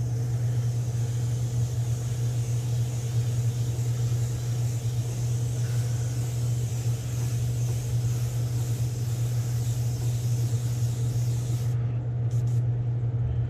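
Airbrush hissing as it sprays paint at low pressure. The hiss stops about twelve seconds in, followed by a couple of short bursts. Under it runs the steady low hum of the spray booth's exhaust fan.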